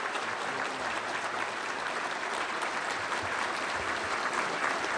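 Large banquet audience applauding steadily, a dense even clapping that runs on without a break.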